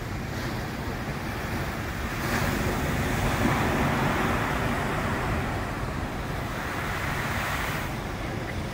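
Indian Ocean breakers washing in on a reef and beach: a steady wash of surf that swells about two seconds in, peaks and eases off, then surges briefly again near the end.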